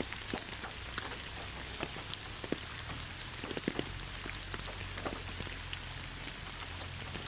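Steady rainfall: an even hiss with many separate drop hits ticking at irregular moments.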